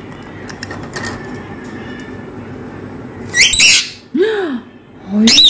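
Pet rose-ringed parakeets screeching in their cage. There is a loud, harsh screech about three and a half seconds in and another near the end, with a lower call between them that rises and falls in pitch.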